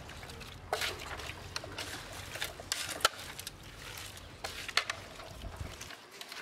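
Hand mixing raw small fish with turmeric powder and salt in a steel pot: wet squelching with irregular sharp clicks as the fish knock against the metal.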